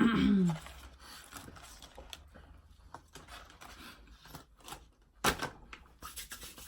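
Chewing of crunchy Sky Flakes crackers: scattered small crunches and clicks, with a louder sharp click about five seconds in. A short hummed 'mm' is heard right at the start.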